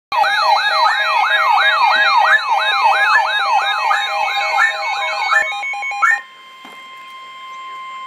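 Weather alert radios going off together: a siren-like rising sweep repeats about three times a second over steady beeping alert tones. About six seconds in the alarms cut off, leaving a much fainter steady alert tone.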